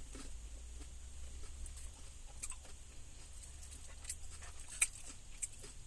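Close-up chewing of a mouthful of cheese-covered tater tots: soft wet mouth smacks and small clicks at irregular moments, over a faint low hum.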